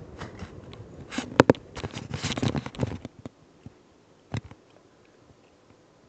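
Pull chain of a Hunter Vista ceiling fan being worked, a series of clicks and rattles as the speed switch is pulled to set the fan to medium, loudest about a second and a half in. One more click follows about two thirds of the way through, then only faint background.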